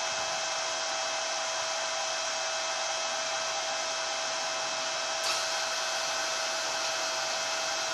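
Steady whir with a constant high whine from the onboard machinery of a stationary Citymobil2 electric automated shuttle, with a light click about five seconds in.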